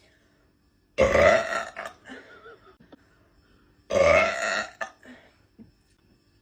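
A young woman belching loudly twice, each burp lasting just under a second, the second about three seconds after the first, with fainter throat sounds trailing after each.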